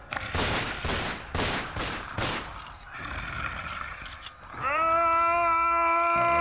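A quick run of about six loud crashing bangs, then a long scream held on one note that sags in pitch as it ends.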